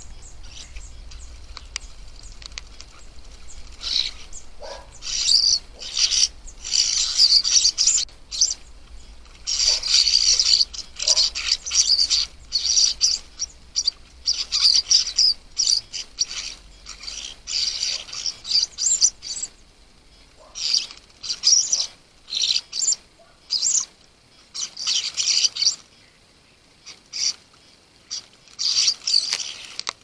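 Juvenile common starlings calling in repeated harsh bursts, close together through the middle and more spread out towards the end, while they bathe and splash in a shallow pan of water.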